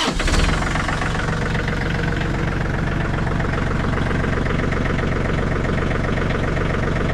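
John Deere 3320 compact tractor's diesel engine starting up, flaring briefly, then settling into a steady idle.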